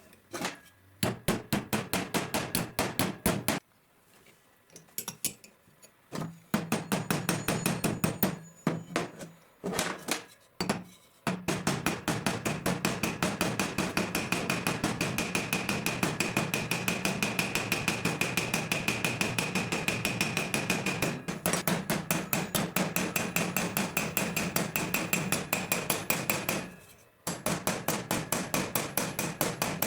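Rapid, steady hammer blows on metal, about four a second, with a faint ringing after the strikes, in runs broken by brief pauses.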